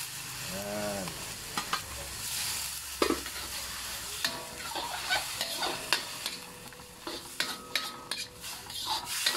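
Pork, onion and tomato sizzling in a pan with a little stock, while a utensil stirs and scrapes the pan with scattered clicks and knocks, a few of them ringing briefly.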